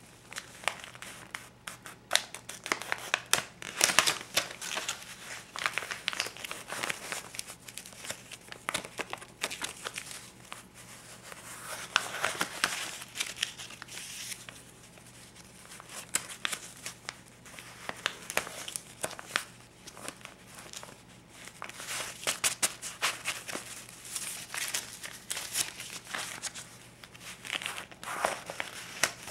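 Crisp US paper banknotes ($50 and $20 bills) being handled and flipped, crinkling and rustling with many sharp little crackles that come in spells, swelling and easing.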